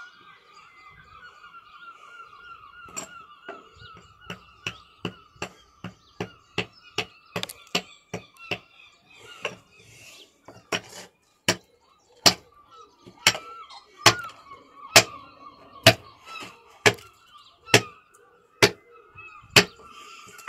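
Hammer striking a stone fossil nodule over and over to split it: sharp knocks, light and quick at first, about two or three a second, then heavier blows about one a second.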